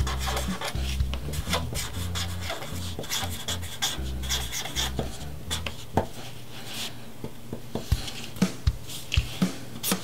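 A pen scratching across paper as a word is handwritten, then several sharp taps near the end as a row of dots is put down.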